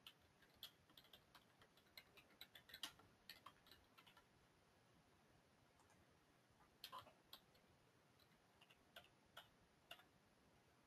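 Faint computer keyboard typing, a quick run of key clicks for about four seconds, then a pause and a few scattered clicks later on.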